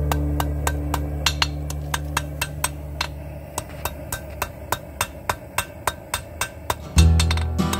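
A hand hammer striking red-hot rebar on a makeshift steel anvil: a steady run of short metallic blows, about three or four a second. Guitar music fades out under the first few blows and comes back loudly near the end.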